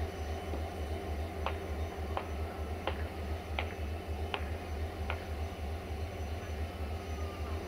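Diesel train engine idling with a steady low throb. Six sharp ticks come at even intervals of about two-thirds of a second through the middle.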